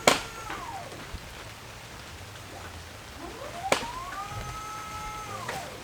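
Hydraulic boom lift whining twice, its pitch rising, holding and falling as the boom is worked, with a sharp click at the start of each run, over steady heavy rain.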